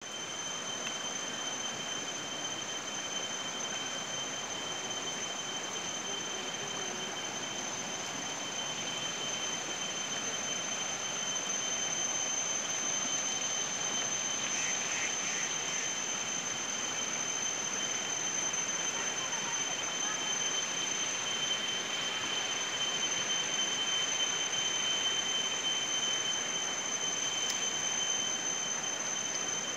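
Shallow river rushing over stones, a steady hiss, with a continuous high-pitched insect drone on one note above it.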